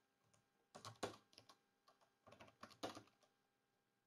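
Faint typing on a computer keyboard: two short bursts of keystrokes, about a second in and again near three seconds, as a terminal command is entered.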